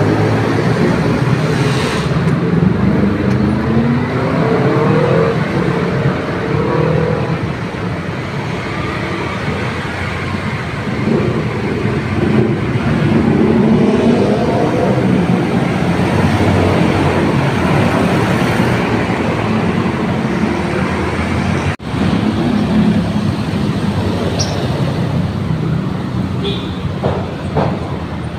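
Busy road traffic at close range: a stream of motorcycles, scooters and cars passing, their engines rising and falling in pitch as they accelerate and go by. The sound drops out briefly about three-quarters of the way through.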